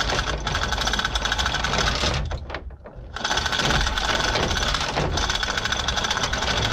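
Manual chain hoist ratcheting under the load of an engine block: a fast, even clicking rattle in two runs, with a pause of about a second between them.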